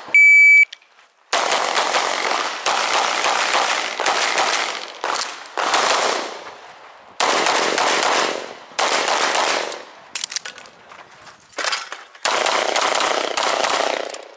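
Shot timer's start beep, the loudest sound, then rapid strings of shots from a compensated, red-dot competition pistol. The shots come in several fast bursts with short pauses between them, running for about twelve seconds.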